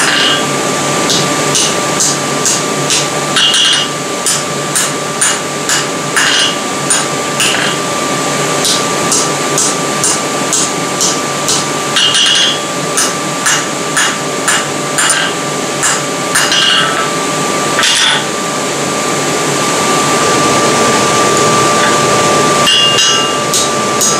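Hand hammer striking red-hot 8 mm square steel stock on an anvil, about two ringing blows a second with short pauses, upsetting the bar's end. A steady hum and hiss runs underneath, the noise of the forge blower. The blows stop for several seconds near the end while that noise swells, then start again.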